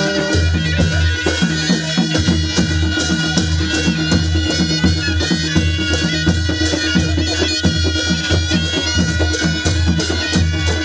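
Nepali panche baja band playing: a reedy shawm (sahanai) melody over a steady beat of drums and clashing cymbals.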